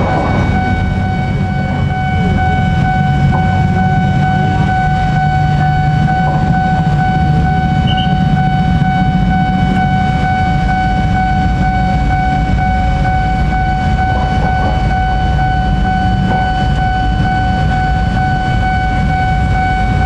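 Diesel locomotive hauling a container freight train as it approaches slowly, its engine a steady low rumble with a constant high whine over it.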